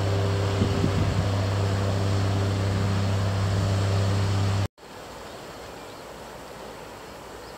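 Motorboat engine droning steadily, a low hum with overtones. It cuts off abruptly about five seconds in, leaving quieter wind and rustling vegetation.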